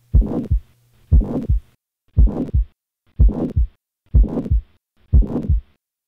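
Recorded heart sounds with a harsh, uniform holosystolic murmur filling the whole gap between the first and second heart sounds, six beats about a second apart. In the setting of a recent heart attack it points to ventricular septal rupture or acute mitral regurgitation from papillary muscle rupture.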